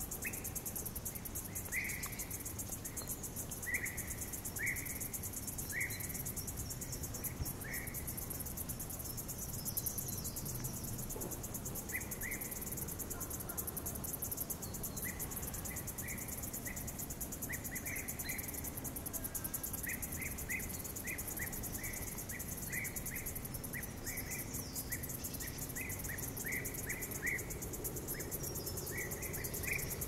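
Summer forest ambience: insects shrilling continuously at a high pitch, over a soft even background. Short high chirps repeat through it, a few at a time at first and in quick runs from about halfway.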